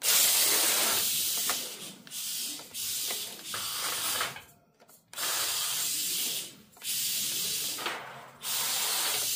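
WLToys K969 mini RC drift car's small electric motor and drivetrain whirring in repeated bursts of throttle, with its tyres sliding across a rubber mat. The hissy whir comes in about six bursts of a second or so each, with short pauses between.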